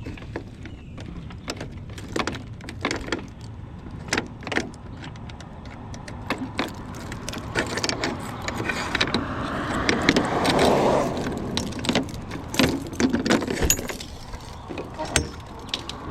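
A bunch of keys jangling among repeated sharp metal clicks and clanks, with a longer, louder noise swelling about eight to eleven seconds in.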